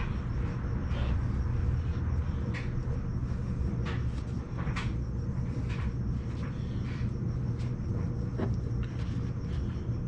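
Steady low rumbling hum, with light clicks and taps scattered through it every second or two.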